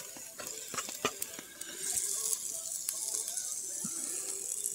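Wood fire crackling with scattered sharp pops, over a steady sizzling hiss from leftover stew heating in a Dutch oven over the fire. The hiss grows stronger about two seconds in.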